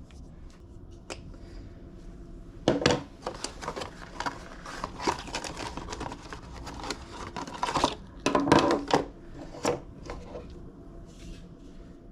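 Handling noises from a small hard object: irregular clicks, knocks and rustles, the loudest about three seconds in and again around eight to nine seconds in.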